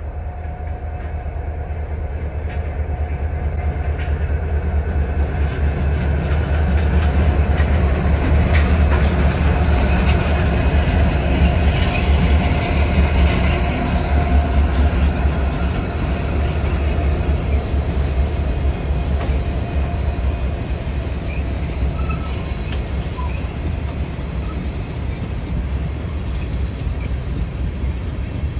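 A CSX freight train's diesel-electric locomotives, led by an EMD SD70MAC, running past with a deep engine rumble that is loudest about eight to fifteen seconds in as they go by. Loaded tank cars then roll past on their steel wheels.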